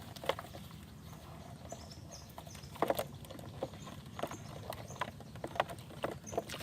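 Scattered, irregular sharp taps and clicks from handling a lú fish trap's netting and the fish caught in it.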